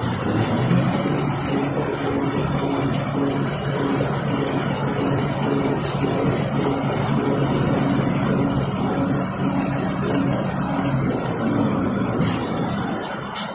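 Toilet roll and kitchen towel converting machine running: a high motor whine rises as it speeds up at the start, holds steady with a slight wobble, and falls away as it slows near the end, over a steady mechanical hum.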